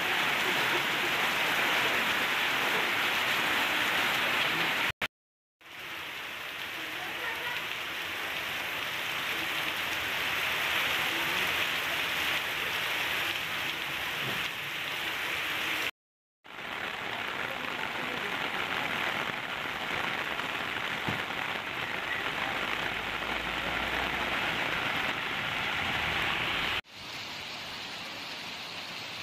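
Heavy rain pouring steadily on the street and roofs, a dense even hiss. It cuts out briefly twice and turns quieter near the end.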